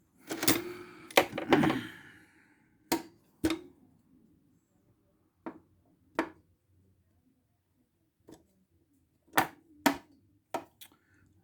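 Metal locking pliers clanking and clicking as they are handled and set down in a steel toolbox drawer: a quick cluster of clanks at the start, then scattered single clicks and knocks.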